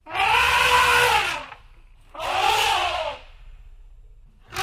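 Elephant trumpeting: two long calls that rise and fall in pitch over a low rumble, and a third beginning near the end.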